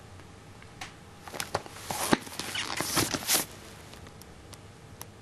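A run of sharp clicks and rustling knocks, thickest and loudest from about a second and a half to three and a half seconds in, then dying back to a faint background.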